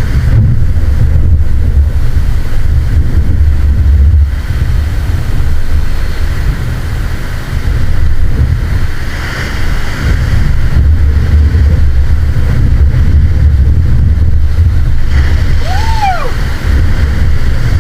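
Wind buffeting the microphone over the steady wash of ocean surf. A brief high call that rises and falls comes near the end.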